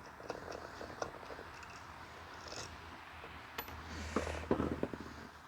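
Faint clicks and light knocks of plastic and metal vacuum parts being handled during a teardown, over a steady low hum. The hum swells slightly a little after the middle, and a few quick clicks come near the end.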